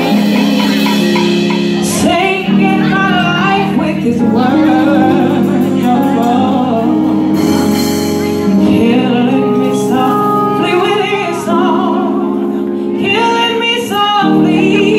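A live band playing a song, with a woman singing lead over keyboard, guitars and drums.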